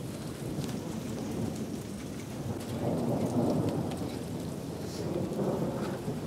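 Steady rain with thunder rumbling, the rumble swelling about three seconds in and again near the end.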